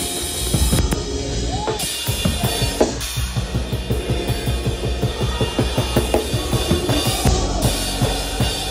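Drum kit played live in a gospel band: fast, busy strokes on the drums with cymbal crashes, over a steady low bass line.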